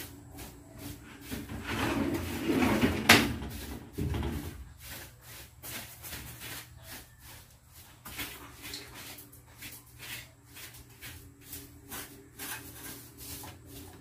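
Household items being handled and moved about during cleaning: scattered light knocks, clatter and rustling. A louder rustling scrape comes about two seconds in, ending in a sharp knock, with another thump just after.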